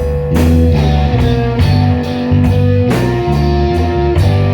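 Live slow blues band: a Stratocaster electric guitar playing a fill of held, bending notes over electric bass and a drum kit keeping a steady beat.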